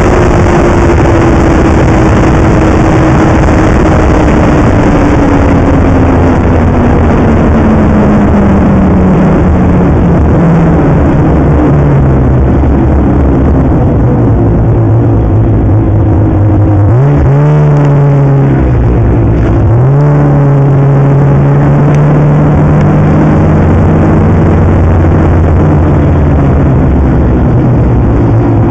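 Snowmobile engine running while riding, its pitch falling steadily as the sled slows over the first dozen seconds, then rising sharply twice as the throttle is opened and the sled accelerates away, settling into a steady cruise.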